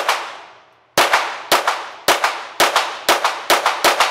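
Smith & Wesson Performance Center SW22 Victory .22LR semi-automatic pistol firing: one shot at the start, then after about a second's pause a rapid string of shots, several a second. Each crack rings on in the echo of an indoor range.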